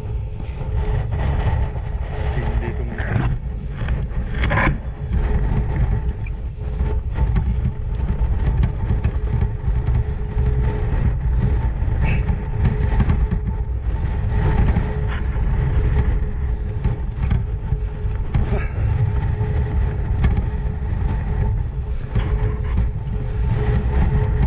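Motorcycle engine running steadily under way on a dirt trail, with a constant low rumble and scattered knocks and rattles.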